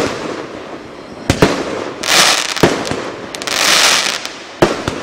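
A 100-shot, 30 mm consumer fireworks cake firing: sharp bangs from about five shots bursting into gold sparks, two of them close together, with two longer spells of hissing between.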